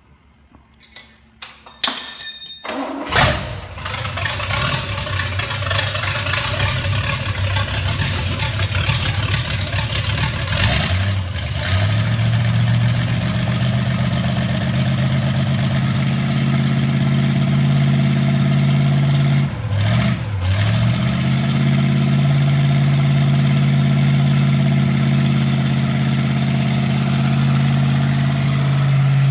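Rebuilt small-block 350 V8 marine inboard engine on a run stand, cranked and firing about three seconds in. It runs unevenly at first, then settles into a steady idle about twelve seconds in. Around twenty seconds in the revs dip briefly and recover.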